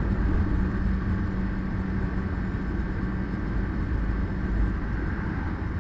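A car on the move: a steady low engine and road rumble with a faint constant hum.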